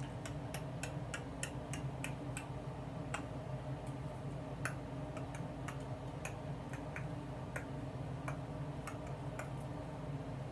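Scissors snipping through wig hair while cutting a bang: a run of irregular sharp clicks, about two or three a second, over a steady low hum.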